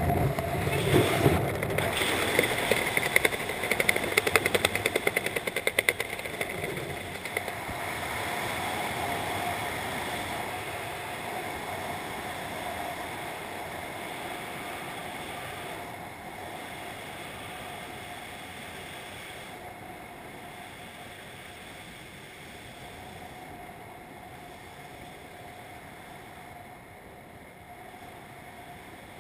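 Wind rushing over the camera's microphone while descending under an open parachute, gusty and fluttering for the first several seconds, then settling into a quieter, steady rush.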